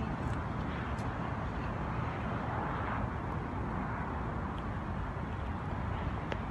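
Steady outdoor city ambience: a distant, even hum of urban traffic with a low rumble, and a few faint ticks.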